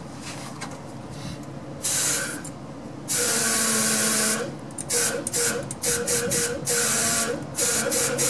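Compressed air blown through a diesel fuel line in hissing bursts: a short blast, a long one of over a second, then a quick run of short blasts. The line is being blown out to check that it is clear of rust and debris.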